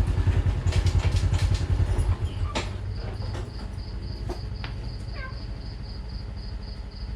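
A small engine running with a fast low pulse, loud for the first two seconds and then fainter. From about three seconds in an insect's steady high pulsing chirr joins it.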